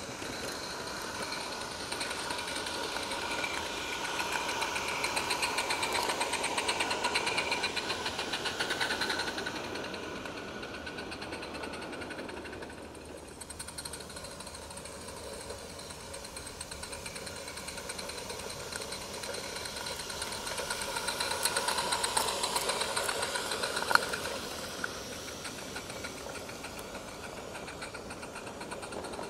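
Garden-railway live steam locomotive chuffing with a fast, even exhaust beat as it hauls a passenger train, swelling louder twice as it runs close by. One sharp click near the end.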